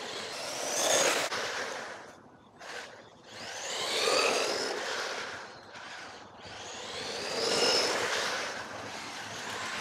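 Wltoys 124018 1/12-scale electric RC buggy driving past three times, its motor and gears whining high. Each pass grows louder and then fades, the pitch sliding as the car speeds up and goes by.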